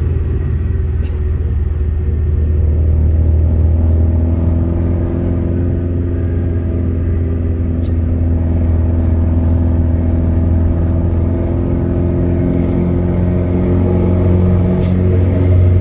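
Car engine and road rumble heard from inside the cabin while driving at a steady speed, a strong low hum with a steady engine note over it. It gets slightly louder near the end.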